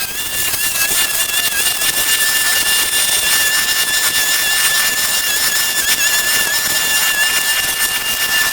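A steady, loud machine hiss with a high, even whine running through it.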